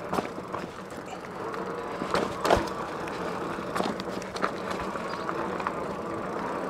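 Cyrusher Trax fat-tire electric bike rolling along pavement: steady tyre and drivetrain noise with a few sharp knocks and rattles, the loudest about two and a half seconds in.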